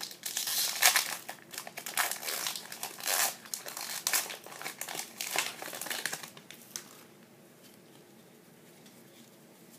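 Foil trading-card pack wrapper being torn open and crinkled by hand, a dense crackling that stops about seven seconds in.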